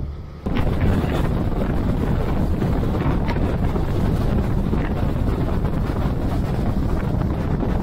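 Heavy wind buffeting the microphone on a moving boat, over the rush of the boat and water; it comes in suddenly about half a second in and stays steady.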